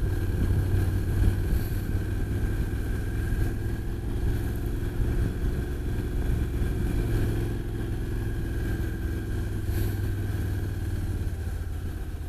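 Motorcycle engine running steadily while under way, a low even hum that holds the same pitch throughout.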